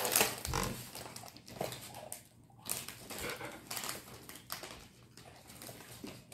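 Crinkling and rustling of a small plastic snack packet being handled, in irregular bursts.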